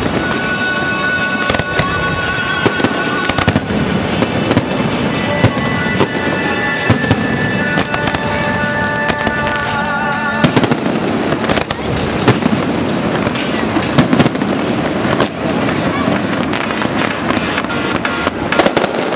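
Aerial firework shells bursting in quick succession, a dense run of sharp bangs and crackles. Music plays along with them for the first half or so, its tones dropping out about ten seconds in while the bangs continue.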